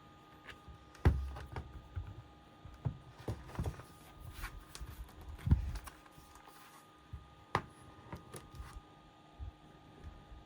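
Irregular handling knocks, taps and clicks of a laptop and tools on a hard surface, with a heavier thump about a second in and another near the middle, and a sharp click later on.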